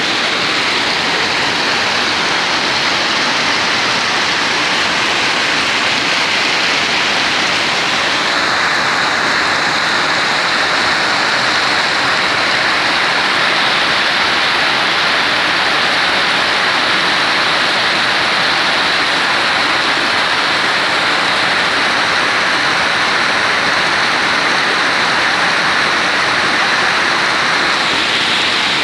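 Heavy rain pouring steadily, with a brighter hiss of water joining about eight seconds in.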